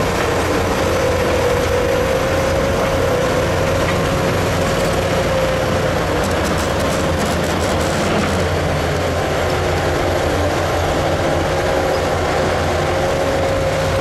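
Crawler bulldozer at work: steady diesel engine rumble under a held, slightly wavering whine, with a spell of rapid clicking in the middle.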